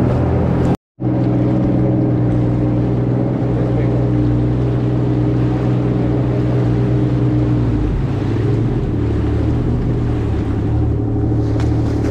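Jet ski engine running steadily at low speed on the water, with a brief total dropout about a second in and a slight change in the engine note about two-thirds of the way through.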